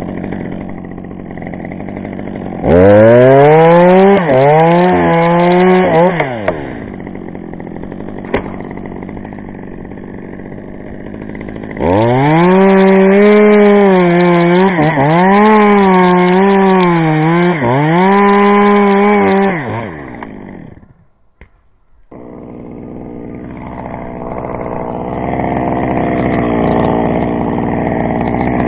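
Two-stroke chainsaw idling, then opened up to full throttle for two cuts into wood, one short and one longer, its pitch dipping and recovering as it cuts. It stops about two-thirds of the way through, and a saw idles again afterwards, revving up near the end.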